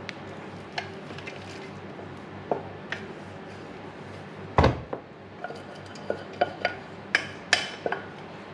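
A wooden spoon scraping and tapping parboiled rice out of a metal saucepan into a frying pan, making scattered clinks and knocks. The loudest is a single knock about halfway through, and a quick run of taps comes near the end.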